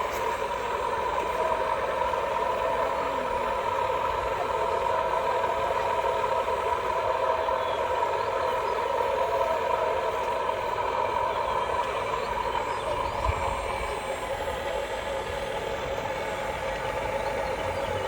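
A steady machine running sound with a constant hum, unchanging in pitch and level.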